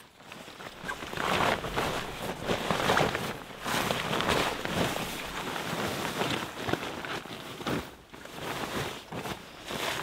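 Fabric rustling and swishing as a sleeping bag and pad are stuffed into a US military surplus bivy sack, in ragged, rapid bursts, easing off about eight seconds in before a few more.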